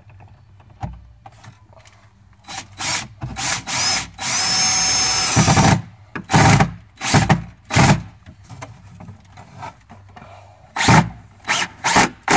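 Cordless drill driving screws up into the underside of a desk. It runs in short squeezes of the trigger, with one longer steady run with a motor whine about four seconds in. Three quick bursts come near the end.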